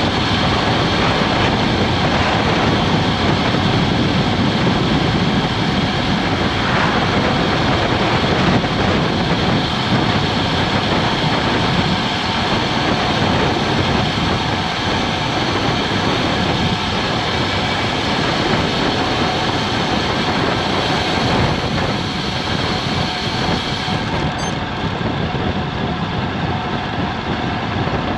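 Steady roar of wind over an action camera's microphone, mixed with road-bike tyres running on tarmac, on a fast downhill. It eases a little near the end.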